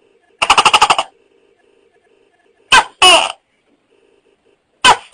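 Tokay gecko calling: a short rattling croak about half a second in, then two two-note "to-kek" calls, one in the middle and one at the end, each a sharp short first note followed by a longer note that falls in pitch.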